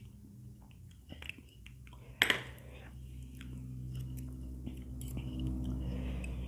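Close-miked eating of Indomie instant fried noodles: chewing and mouth noises, a sharp click about two seconds in, then spoon and chopsticks stirring and scraping the noodles on a plate with small clicks.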